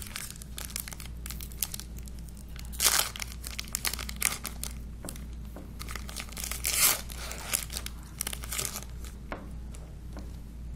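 Foil Pokémon trading card booster pack wrapper being crinkled and torn open: scattered crackling rustles, with two louder bursts about three and seven seconds in.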